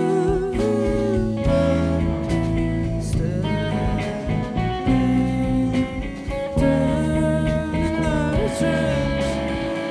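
Live band playing a song in a country-blues vein: strummed guitar under a held, wavering melody line, with singing.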